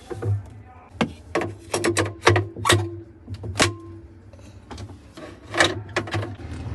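A quick, irregular run of sharp clacks and knocks from hard objects, some ringing briefly.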